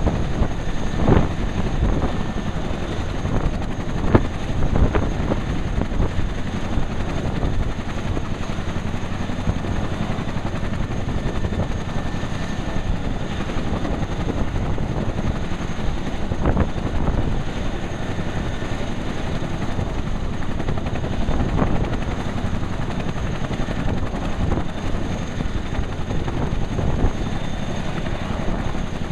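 Boeing CH-47 Chinook's twin turboshaft engines and tandem rotors running steadily on the ground during warm-up, with a few brief louder swells.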